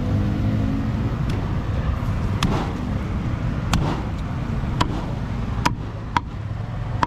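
A cleaver chopping roast pork on a board: six sharp strikes spaced about a second apart, each with a short ring, over a steady low rumble of traffic.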